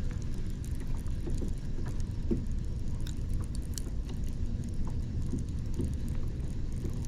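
Steady low rumble, like wind or water against a kayak hull, with scattered light clicks and taps.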